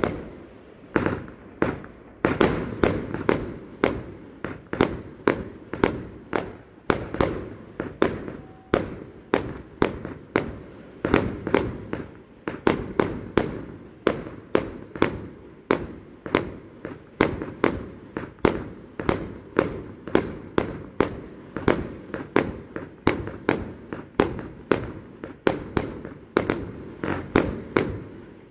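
Aerial fireworks display: a steady barrage of sharp bangs from shells bursting in the air, about two a second and sometimes in quick clusters, each bang trailing off.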